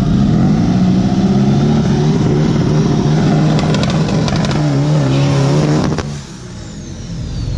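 Turbocharged VW Beetle drag car's engine revving hard and held at high revs, the pitch wavering, with a burst of sharp crackles about three and a half seconds in. The engine sound cuts off abruptly about six seconds in, leaving a faint high whistle that falls in pitch.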